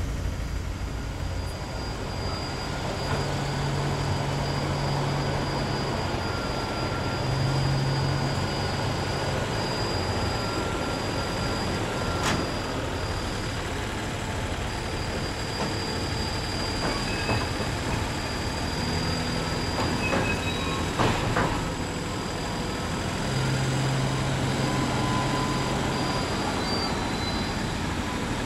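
Track-maintenance train of rail-mounted work machines on flat wagons rolling past, with a steady rumble of wheels on rails. A thin, high wheel squeal comes and goes, and there are a couple of sharp clanks, one near the middle and one later.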